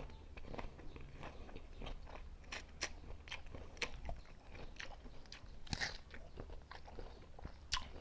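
Chewing and biting on crisp unripe green mango, heard close up as a string of short, irregular crunches.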